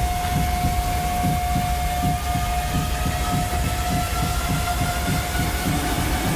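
Trailer score and sound design: one high tone held throughout, sagging a little, while a second, fainter tone slowly rises. Underneath runs a deep, rapidly pulsing rumble.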